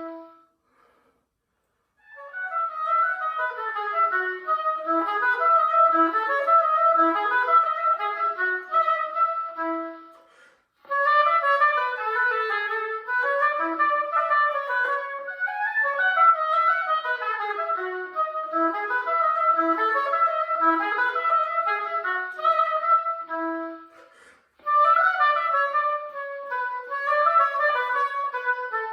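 Solo oboe playing quick running passages of notes, in three long phrases broken by brief pauses, after a held note that ends at the start.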